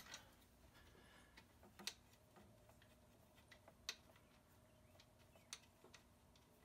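Near silence broken by a few faint, isolated metal clicks about every two seconds: bolts and a socket being handled while the cover bolts are put back in.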